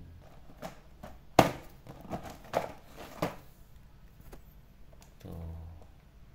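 Cardboard toy box with a plastic window being handled and turned over on a foam mat: a sharp knock about a second and a half in, then a few softer taps and crinkles of card and plastic.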